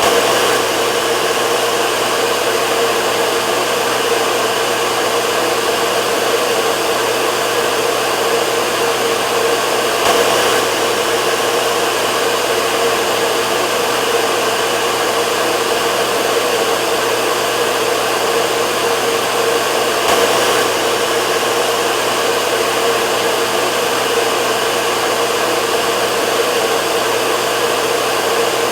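Hair dryer running continuously: a steady rush of blown air with a constant hum under it, swelling slightly about every ten seconds.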